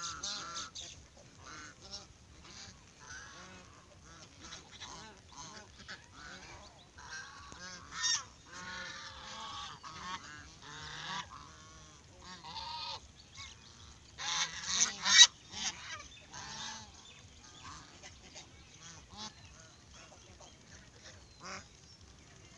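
A flock of domestic geese honking, many short calls overlapping. The honking swells into louder bursts about eight seconds in and again around fourteen to fifteen seconds in, then thins to fewer, quieter calls near the end.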